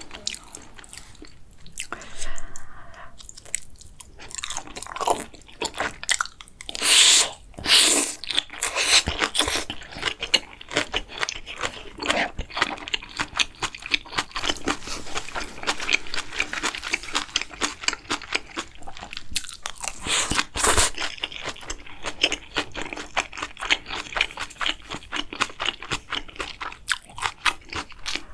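Close-miked eating sounds: steady chewing and crunching with wet mouth smacks, and a few louder bursts about seven seconds in and again around twenty seconds in.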